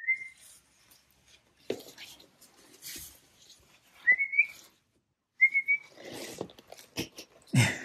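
Shiba Inu whining: three short, high-pitched whines, each rising slightly, with thumps and rustling between them.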